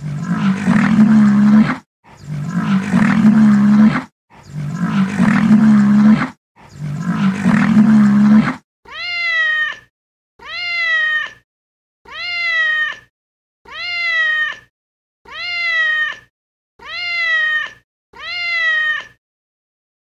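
A cat calling in two repeated patterns. First come four identical long, low, rough calls of about two seconds each. Then come seven identical shorter meows, each rising then falling in pitch, about one and a half seconds apart.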